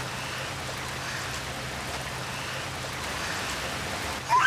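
Steady light rain falling, an even hiss. Right at the end a toddler's voice breaks in with a rising squeal.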